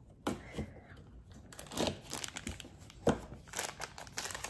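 Small plastic wrapper crinkling as it is pulled and worked at by hand to tear it open, stubborn to open without scissors. There is a sharp snap about three seconds in.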